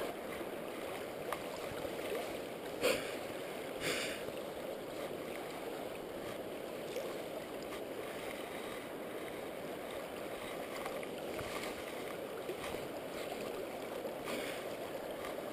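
Steady rush of flowing river water, with a few brief faint knocks scattered through it.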